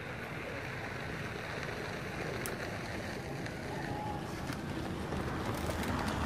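Steady outdoor background noise: a low rumble with a hiss over it, growing slightly louder, with a few faint clicks.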